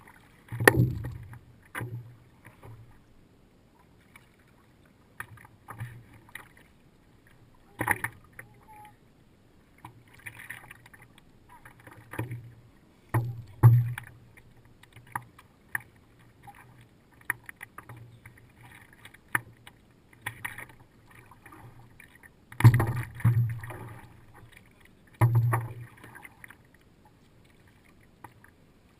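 Stand-up paddleboard moving over calm water: paddle strokes splashing and water lapping and slapping against the board, heard close up from the board itself. Irregular dull thumps stand out a few times, loudest about a second in and again near 23 seconds.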